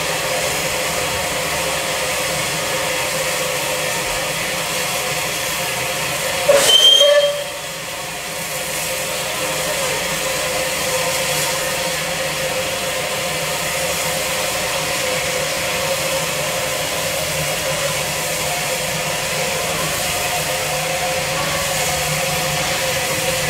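Bulleid West Country Class steam locomotive standing in steam, giving off a steady hiss. About six and a half seconds in, a short whistle sounds for under a second, sliding up in pitch as it opens.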